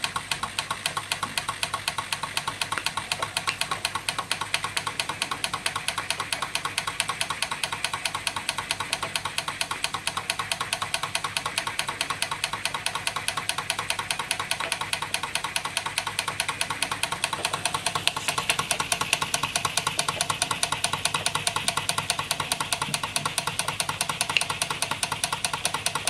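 Jensen 35 toy steam engine running on live steam and driving the belt-driven Jensen #100 Workshop toy machines: a rapid, even beat of clicks and chuffs that grows a little louder about two-thirds of the way through.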